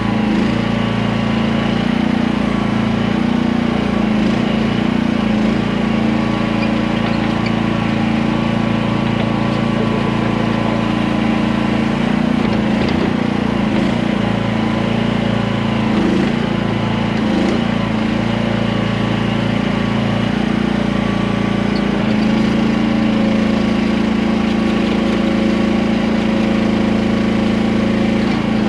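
Small gasoline engine of a QH13R micro mini excavator running steadily at working throttle, its pitch wavering a little in the middle of the stretch.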